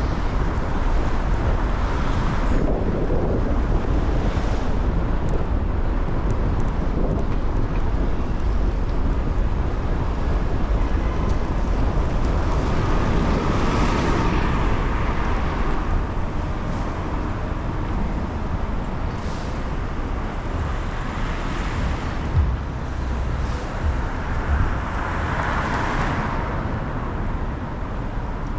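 A car driving on wet city streets: steady low road rumble with wind noise on the microphone, and a few swells of tyre hiss that come and go as traffic passes.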